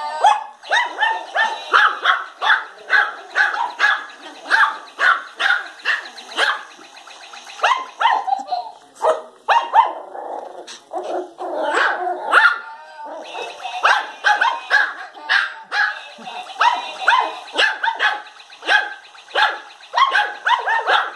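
Yorkshire terrier puppies barking: high-pitched yaps, about two a second, in runs broken by short pauses.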